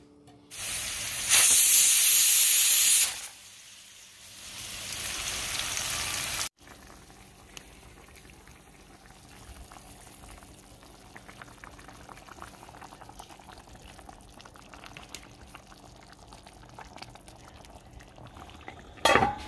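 Kitchen cooking sounds: a loud sizzle lasting about three seconds near the start, and a second hiss that swells and then cuts off. After that, a pan of fish curry simmers with a soft, steady crackle of small bubbles.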